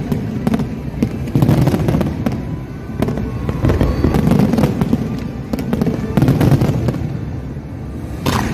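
Fireworks display going off in rapid succession: a dense run of cracks and crackling with heavy booms that come in clusters every couple of seconds.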